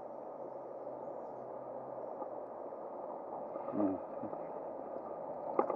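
Steady rushing of flowing river water. About four seconds in comes a brief low hum of a man's voice, and just before the end a sharp click.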